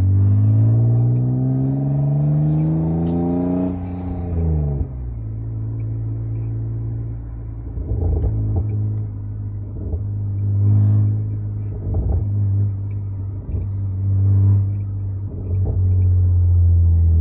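A BMW 328i E36 straight-six, fitted with a Remus aftermarket exhaust and heard from inside the cabin, accelerating hard. Its note rises steadily for about four seconds and drops off as the throttle is lifted. It then settles into a steady drone, broken by a few short exhaust crackles.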